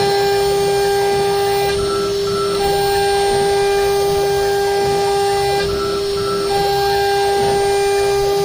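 CNC router running a cutting test: the spindle gives a loud, steady high whine, while the fainter tones of the axis drive motors stop and restart in a repeating pattern every few seconds, with a short double beep in each pause.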